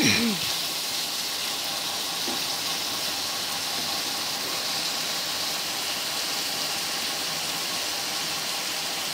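Shrimp, potato and stem vegetables sizzling in hot oil in a frying pan, a steady frying hiss, as the spiced curry is sautéed down and stirred with a wooden spatula.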